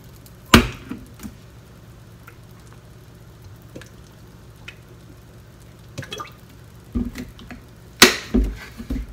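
Kitchen handling sounds as mirin is measured with a metal spoon: a sharp click about half a second in, a few scattered clinks and faint drips of liquid, and a louder clatter at about 8 seconds.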